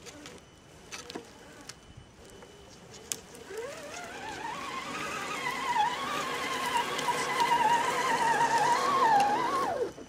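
Electric motor and gearbox of a radio-controlled scale crawler whining as it drives: the pitch rises from about a third of the way in, wavers with the throttle while growing louder, then drops and cuts off just before the end.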